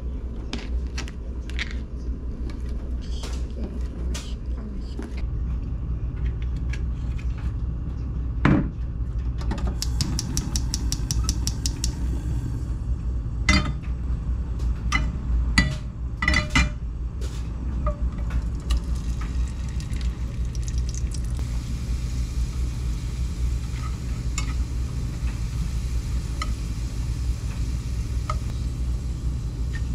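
Kitchen cooking sounds. A knife chops fish cake on a plastic cutting board, then a pan and utensils clink on a gas hob after a quick run of ticks. From about two-thirds of the way in, oil sizzles steadily as fish cake strips fry and are stirred with chopsticks, over a steady low hum.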